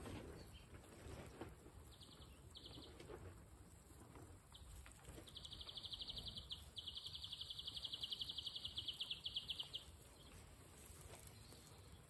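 Guinea pigs nibbling grass and rustling the hay, faint under a low wind rumble. A high, rapid pulsing trill comes in two short snatches about two seconds in, then runs for about four and a half seconds from five seconds in, with one short break. It is the loudest sound here.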